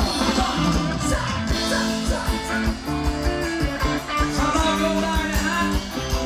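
Live band music over a stage sound system: a steady drum-kit beat with guitar, played loud.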